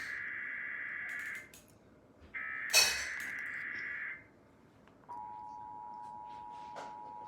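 Emergency Alert System tones from a TV: two screechy digital data bursts of about two seconds each, then, about five seconds in, the steady two-tone attention signal that announces the alert's message. A sharp knock about three seconds in is the loudest moment.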